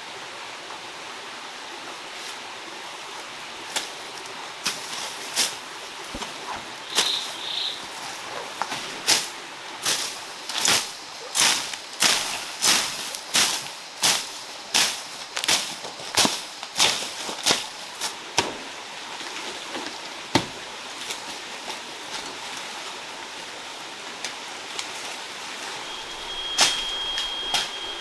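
A jungle knife slashing through grass and weeds in a run of sharp cuts, about one and a half a second, over the steady rush of a forest stream.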